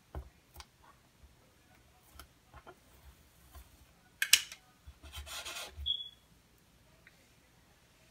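Hands rubbing and pressing vinyl decals down onto a painted wooden toilet seat lid: light scuffs and ticks, a sharp scrape about four seconds in, then about a second of rubbing that ends in a brief squeak.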